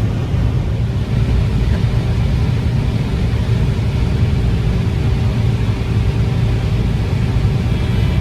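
John Deere 9750 STS combine running under load while harvesting corn, heard from inside the cab: a steady low rumble, with a faint steady hum joining about a second in.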